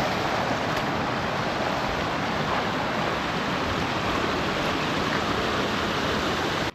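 Fast-flowing river water rushing steadily, cutting off suddenly at the very end.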